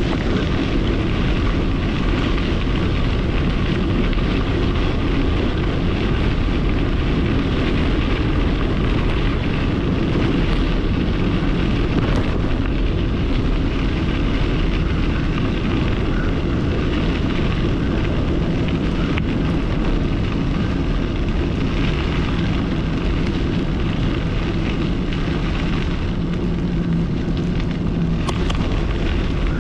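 Steady wind noise buffeting the microphone of a camera on a fast-moving bicycle, with the rolling rumble of the tyres on a gravel trail.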